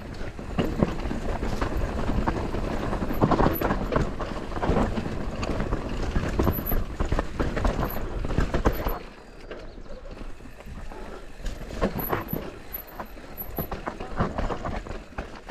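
Intense Tazer MX Pro electric mountain bike riding fast down a rough dirt-and-rock trail: tyres crunching over gravel and the bike rattling and knocking over bumps. It gets noticeably quieter about nine seconds in.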